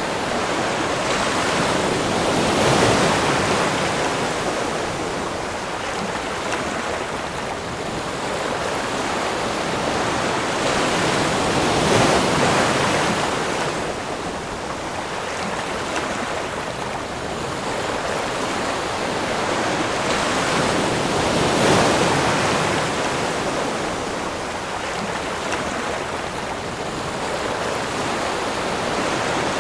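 Ocean surf: waves washing in and breaking, the sound swelling and easing in long surges roughly every ten seconds.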